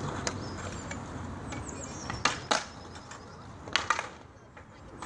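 Stunt scooter decks and wheels clacking on concrete: two quick pairs of sharp knocks, about two and a half and four seconds in, over a steady low rumble.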